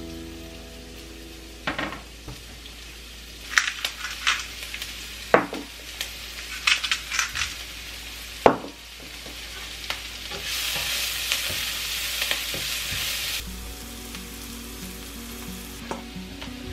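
Diced red onions sizzling gently in oil in a nonstick frying pan, with scattered sharp clicks and pops. About ten seconds in, the sizzle grows louder and brighter for a few seconds.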